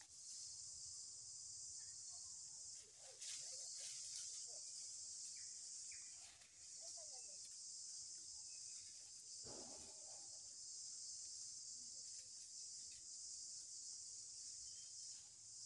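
Steady high-pitched chorus of insects buzzing in forest, with a few faint short chirps and a brief rustle about ten seconds in.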